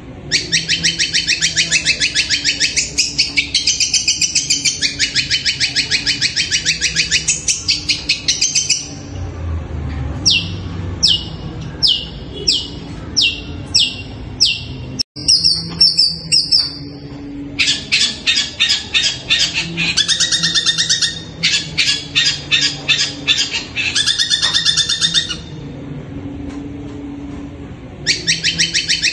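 Long-tailed shrike (cendet) singing loudly: long runs of fast, repeated chattering notes, broken in the middle by a series of falling whistles, with a short pause before the fast notes start up again near the end. The uploader likens this song to the voice of a kuntilanak ghost.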